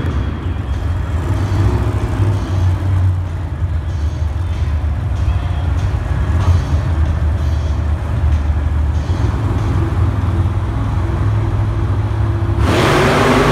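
Monster truck supercharged V8 engines rumbling at idle, echoing around the arena. Near the end the sound suddenly swells louder and rougher as an engine revs up.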